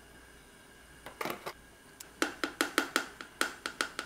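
A metal spoon clinking against a glass measuring cup of sauce: a few clinks about a second in, then a quick run of about ten sharp clinks, some five a second, that stops near the end.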